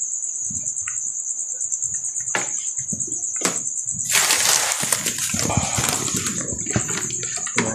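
Plastic bags rustling and goods knocking as they are packed into a plastic crate, with a couple of light knocks and a louder crinkle of plastic about four seconds in. A steady high cricket trill runs underneath.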